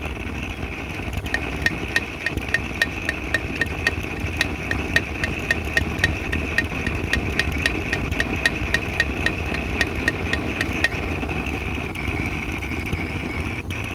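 Vintage gasoline blow torch lamp burning steadily, its pressurised fuel vaporising in the heated tube and feeding the flame. A quick ticking, about three times a second, runs through most of it and stops about three seconds before the end.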